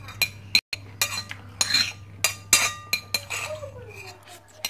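Metal spoon clinking and scraping against a ceramic dinner plate while eating: a string of sharp clinks, each with a short ring.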